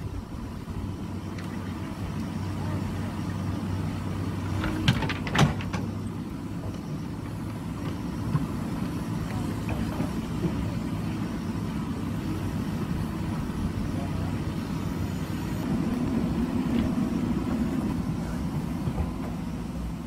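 JCB backhoe loader's diesel engine running steadily under load as the backhoe arm digs, with two sharp clanks about five seconds in. The engine note rises for a few seconds near the end as the loaded bucket is lifted.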